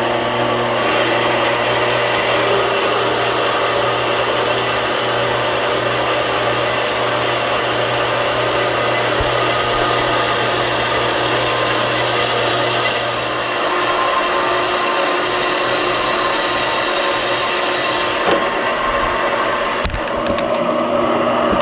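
Horizontal metal-cutting band saw running, its blade cutting through square steel tubing: a steady cutting noise over the motor's hum. The hum changes about two-thirds of the way through. The high cutting noise thins out near the end, and a single click follows.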